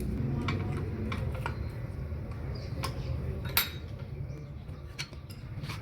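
Scattered light metallic clinks and taps, the sharpest about three and a half seconds in, over a steady low rumble.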